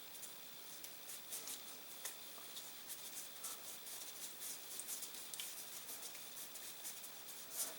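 Faint, irregular scratching and rubbing of a cotton swab being scrubbed inside a metal suppressor part, with light handling ticks.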